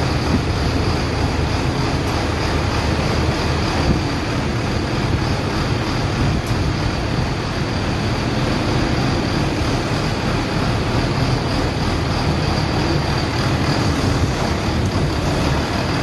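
Caterpillar 320D hydraulic excavator running steadily, its diesel engine and hydraulics working as the upper structure swings round and the boom lifts the bucket.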